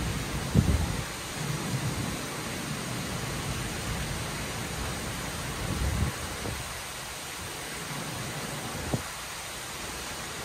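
Heavy rain pouring steadily, with low thunder rumbling. The rumble is strongest about half a second in and swells again around six seconds in. There is a short sharp tap about nine seconds in.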